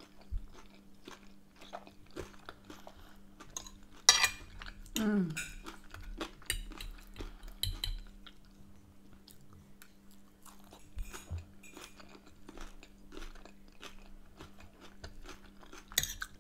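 Close-up chewing of a mouthful of chips and salt and pepper chicken: soft crunches and wet mouth sounds, loudest about four seconds in. A metal fork clinks and scrapes on the plate near the end.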